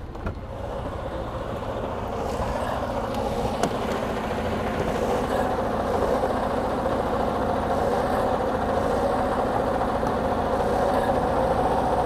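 Detroit DD15 inline-six diesel in a Freightliner Cascadia idling steadily at operating temperature, heard from the cab. It grows a little louder over the first few seconds, then holds steady.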